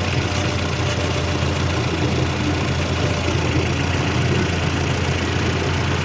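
1.2 16V petrol engine idling steadily with its accessory belt removed. It carries a noise that comes and goes, which the mechanic traces to a worn water pump.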